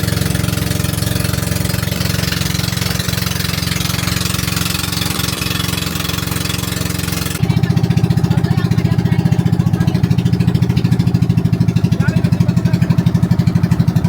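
A vehicle engine running steadily. About seven seconds in the sound changes abruptly to a louder, evenly pulsing engine note with less hiss.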